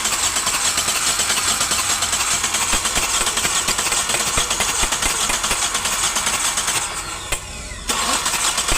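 Starter motor cranking the Toyota Etios's diesel engine without it catching, turned over to bleed air out of the fuel injector lines. The cranking stops for about a second near the end and then starts again.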